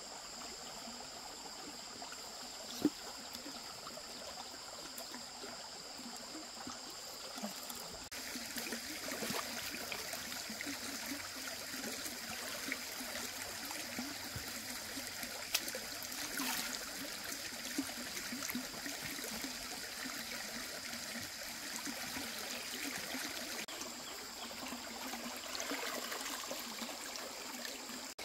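Water flowing steadily, a rushing stream-like sound, with a thin steady high-pitched whine over it. A single sharp click about three seconds in, and the water grows louder about eight seconds in.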